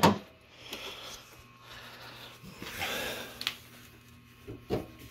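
Car hood being lowered slowly by hand: a sharp click at the start, then breathing and handling noise, and two light knocks near the end as the hood comes down.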